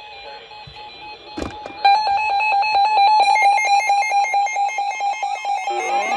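An electronic alert tone: after a sharp click about a second and a half in, a loud rapid beeping at one pitch starts, about ten pulses a second, with higher tones stepping about above it. Near the end a tone begins to glide upward like a siren winding up.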